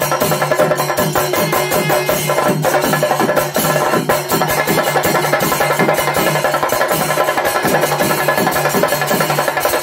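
Chenda melam: a large ensemble of chenda drums beaten together with sticks in dense, fast, unbroken strokes.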